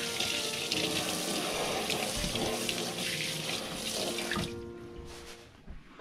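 Water running into a kitchen sink, dying away after about four and a half seconds, over background music.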